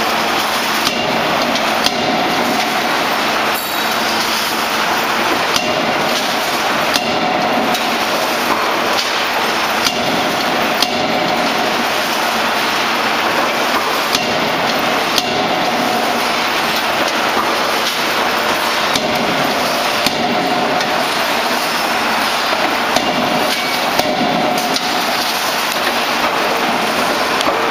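A 16 kJ C92K CNC hydraulic die forging hammer striking red-hot steel blanks in its die, with repeated blows every second or two over steady loud machine noise.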